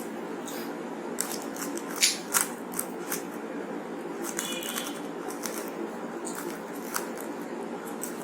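Rubik's Cube layers being turned quickly through an algorithm for the cube-in-cube pattern: a run of irregular plastic clicks and clacks, busiest in the first few seconds.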